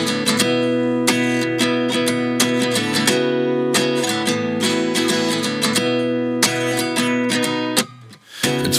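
Background music: strummed acoustic guitar chords with a steady rhythm, breaking off briefly near the end.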